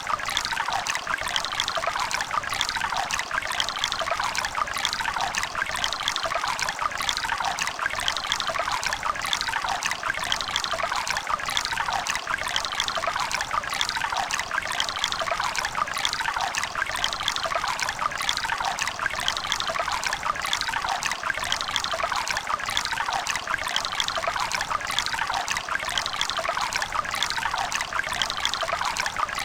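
Running river water, a steady bubbling rush over rocks without a break.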